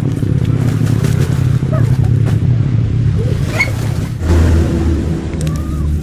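A motor engine running steadily with a low hum, dropping to a lower, louder hum about four seconds in.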